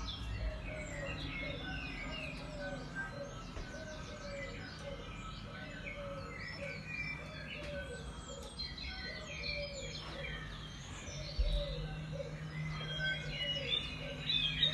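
Many birds chirping and calling at once, a dense chorus of overlapping tweets with a repeated lower call about twice a second, over a steady low hum.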